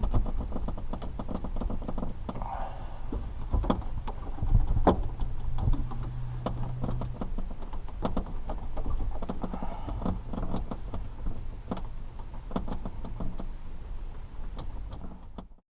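Irregular clicks, scrapes and knocks of straightened coat-hanger wire tools being worked into the release holes on each side of a 1994 Ford F-150's factory dash radio, with rattles of the plastic dash and radio face; the sound cuts off suddenly near the end.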